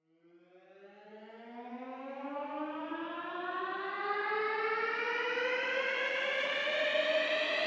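A siren winding up: one tone rising slowly and steadily in pitch as it fades in from silence and grows louder.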